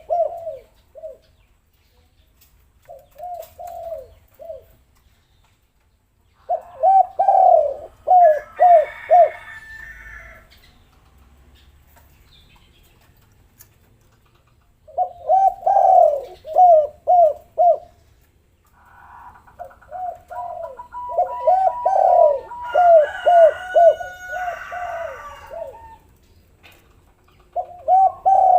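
Spotted doves cooing in bursts of quick, short, falling coos with pauses between them. Twice, higher chirping calls join in over the coos.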